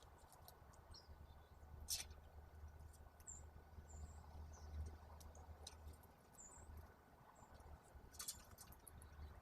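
Faint, short high-pitched chirps of small songbirds, a few scattered through, with two sharp clicks, one about two seconds in and one near the end, over a steady low hum.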